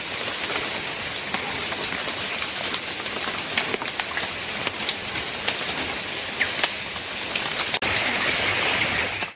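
Steady rush of water with many small drop-like ticks. About eight seconds in it breaks off for a moment and comes back brighter.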